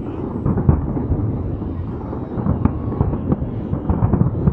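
Aerial firework shells exploding in quick, overlapping succession: a continuous low rumble broken by many sharp bangs.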